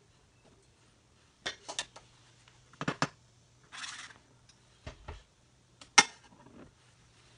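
Spatula tapping and scraping lumps of lard into a nonstick frying pan: a series of short knocks and clinks with a brief scrape about four seconds in, and a sharper knock about six seconds in.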